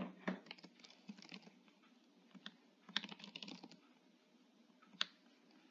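Faint typing on a computer keyboard: a run of keystrokes in the first second and a half, another run around three seconds in, and a single keystroke near the end.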